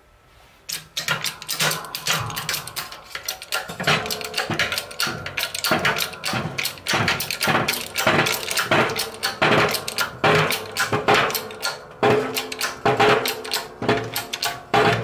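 Hydraulic shop press being hand-pumped to push a new front wheel bearing into a steering knuckle: repeated metallic clanks of the pump strokes, starting about a second in and going on at roughly one or two a second.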